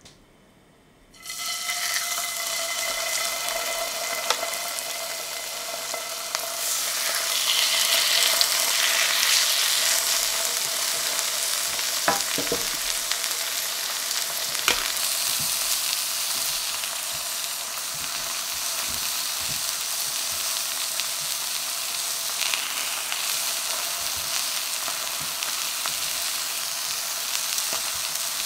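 Pork chops frying in olive oil in a cast-iron skillet: a sizzle that starts suddenly about a second in as the chops meet the hot oil, swells louder for a few seconds, then settles into a steady sizzle, with a couple of light clicks around the middle.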